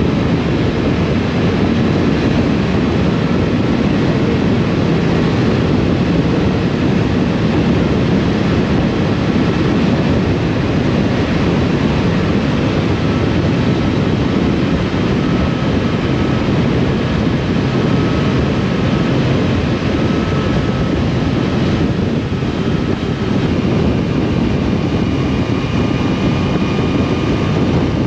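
Motorcycle on the move: steady engine and road noise mixed with wind buffeting the action-camera microphone.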